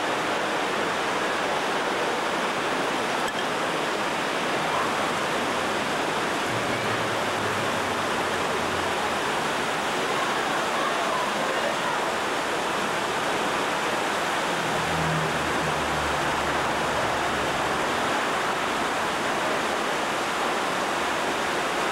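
Whitewater rushing over rocks in a fast river, a steady, unbroken noise.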